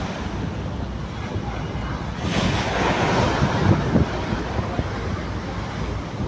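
Sea waves and wind buffeting the microphone: a steady rushing noise with a heavy low rumble, swelling louder about two seconds in.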